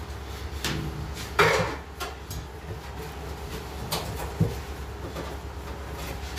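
Wooden rolling pin and hands working kubz flatbread dough on a marble slab: scattered knocks and scrapes, the loudest a sharp knock with a brief scrape about a second and a half in, over a steady low hum.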